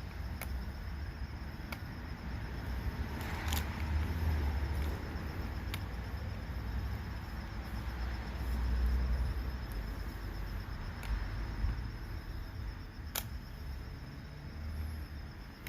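DeWalt DCD996 cordless hammer drill boring a 1-inch spade bit into oak under heavy load: an uneven low rumble that swells and eases, with a few sharp clicks.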